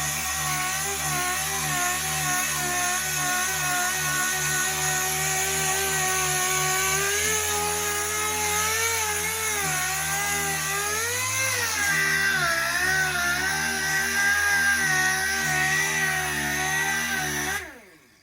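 Power sander running on the car's body panels, its pitch wavering and dipping as it is pressed against the paint to knock off primer. It shuts off near the end and spins down.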